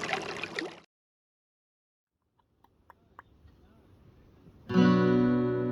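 Silence, then near the end an acoustic guitar comes in loud with ringing strummed chords: the start of an intro theme song.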